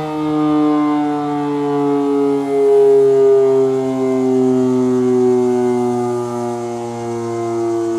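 Federal Model 5 mechanical outdoor warning siren sounding, its tone sliding slowly and steadily downward, typical of the siren winding down at the end of its attack signal. The loudness swells and dips as it goes.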